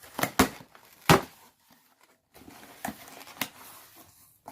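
Product packaging being handled and opened: three sharp snaps or knocks in the first second or so, then rustling and crinkling with a couple of clicks from about halfway.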